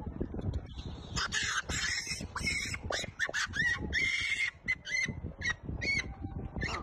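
Macaque screaming: noisy screeches, then a rapid run of short, high arching squeals.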